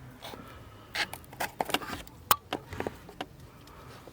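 Scattered clicks and light knocks of hand tools working on a vehicle's wiring while a wire is being cut. The loudest is one sharp snap a little over two seconds in.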